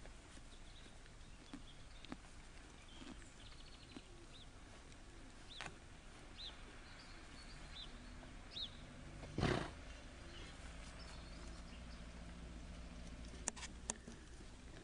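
A pony snorts once, a short loud blow through the nostrils about two-thirds of the way in, against a quiet outdoor background with a few small chirps.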